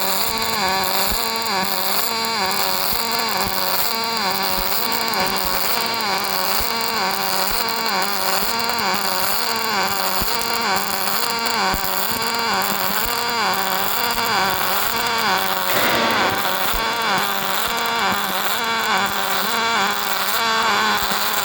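Welding equipment running: a steady machine hum whose pitch wavers up and down about once a second, over a constant hiss, cutting off suddenly at the end.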